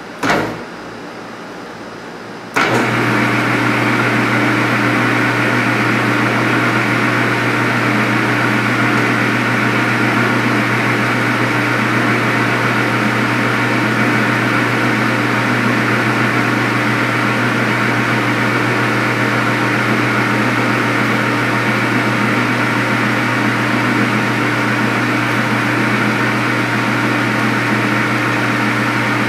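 A short knock just after the start, then a metal lathe starts up about two and a half seconds in and runs at a steady, constant drone while center-drilling the end of a spinning bronze workpiece.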